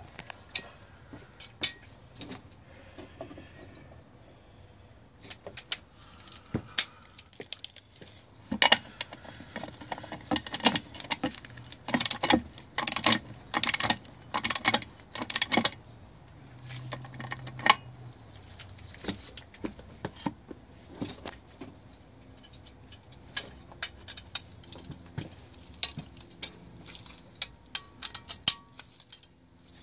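Socket wrench ratchet clicking in irregular bursts, with metallic clinks of the socket on the propeller nut, as the nut on a Mercury Flo-Torq II propeller hub is tightened toward its 55 ft-lb torque. The clicking is thickest through the middle of the stretch.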